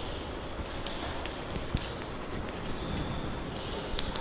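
Handwriting sounds: quick scratchy strokes and light ticks, over a steady low background hiss.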